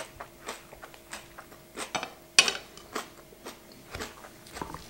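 Close-up chewing of a mouthful of roast chicken and salad, with scattered wet mouth clicks and taps of a fork and knife against a plate. The sharpest click comes about two and a half seconds in.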